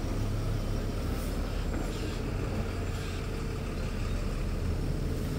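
A truck engine running with a steady low rumble, with a few faint knocks over it.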